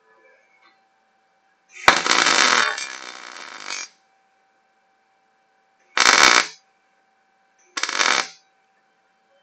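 Electric arc welding tacking steel wire-mesh ends to a steel frame: three bursts of crackling sizzle, the first about two seconds long and starting with a sharp strike, then two short tacks of about half a second each near the end.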